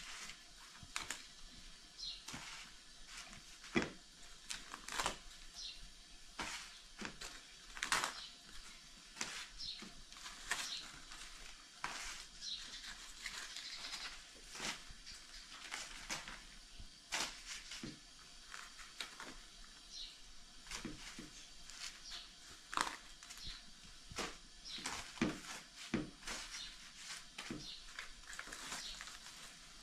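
Thin, dry tiri flatbread sheets rustling and crackling as they are lifted, folded and stacked by hand, in irregular short crackles.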